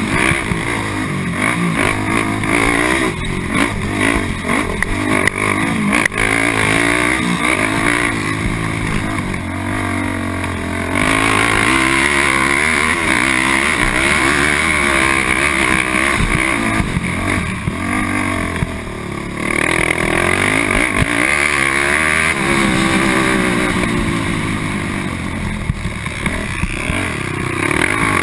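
Honda TRX450R quad's single-cylinder four-stroke engine under race throttle, revving up and down through the gears, easing off briefly about a third of the way in and again past halfway, heard from the rider's helmet camera.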